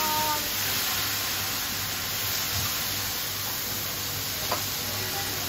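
Sauced yakisoba noodles sizzling steadily on a hot flat iron griddle as they are tossed and turned with two metal spatulas, with one sharp click about four and a half seconds in.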